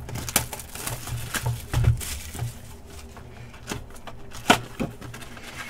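Foil trading card pack being torn open and handled, with crinkling and scattered sharp clicks; one louder snap about four and a half seconds in.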